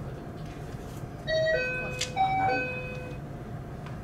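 Door-closing warning chime: a short electronic melody of four notes stepping down, up and down again, with a click about two seconds in.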